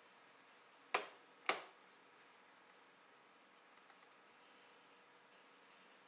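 Two sharp clicks about half a second apart, each with a short tail, from a computer being operated by hand. Near four seconds in comes a faint double tick.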